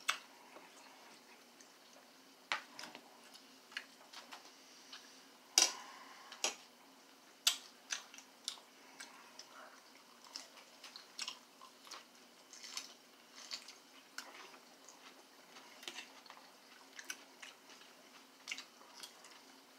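Eating sounds: quiet chewing, broken by sharp, irregular clicks of utensils against a plate.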